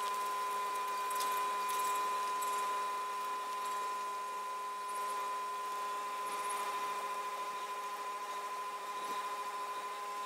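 Steady machine hum with a high whine, holding several even pitches without change, with a few faint scrapes of a brush working resin along a concrete crack.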